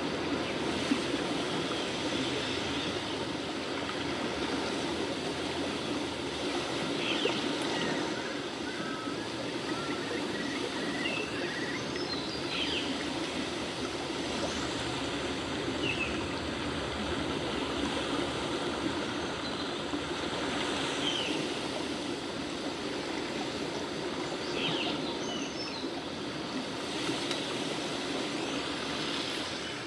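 Steady rushing noise like a running stream, with a few faint short high chirps here and there.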